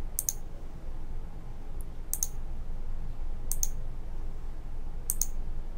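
Computer mouse clicking four times, about a second and a half apart, each a quick double tick of the button going down and up, over a faint low steady hum.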